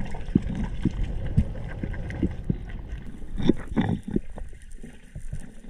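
Muffled underwater rumble picked up by an action camera in its housing during a freedive, with a string of short, low knocks at irregular intervals.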